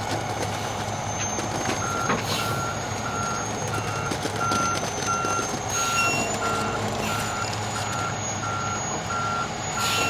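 Concrete mixer truck backing up: its reverse alarm beeps steadily, about one and a half beeps a second, starting about two seconds in, over the steady hum of the diesel engine.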